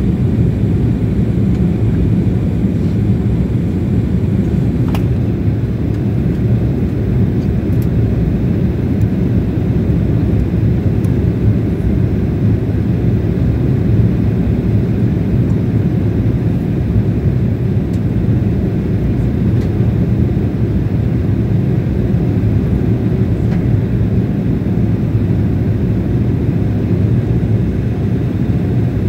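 Jet airliner cabin noise heard by a window seat in flight: a steady, even low rumble of engine and airflow noise.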